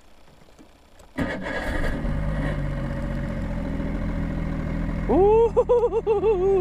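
Boat engine cranking and catching about a second in, then running at a steady idle. Near the end a voice whoops with a long wavering pitch over the engine.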